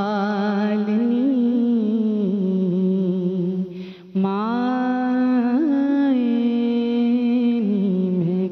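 A voice humming the slow naat melody without words, in long held notes with wavering pitch. It breaks off briefly about four seconds in, then glides back up and holds again.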